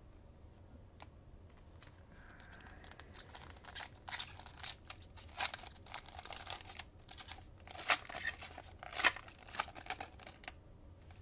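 The plastic foil wrapper of a Panini Chronicles trading-card pack being torn open and crinkled by hand. It starts about three seconds in as a run of sharp crackles with several loud rips, and stops shortly before the end.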